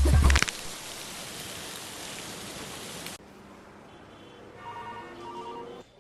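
Loud music with a deep bass cuts off half a second in, leaving a steady rain-like hiss that stops abruptly about three seconds in. Near the end, faint repeating electronic tones like a telephone ringing.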